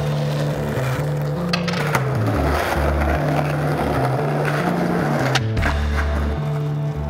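Skateboard rolling, with a few sharp clacks of the board popping and landing, over background music with a stepping bass line.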